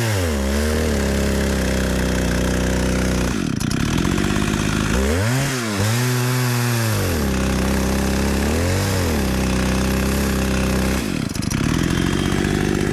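Chainsaw on an Alaskan mill cutting slabs from a pecan log, its engine running at high speed. The engine speed sags and recovers several times, about a second in, near the middle and towards the end.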